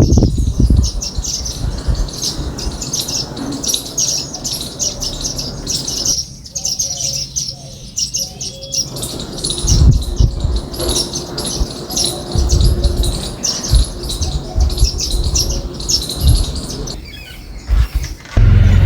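Birds chirping in a dense chatter of many short, high notes that overlap almost without pause, with low thumps and rumbles at times and a louder low rumble in the last half second.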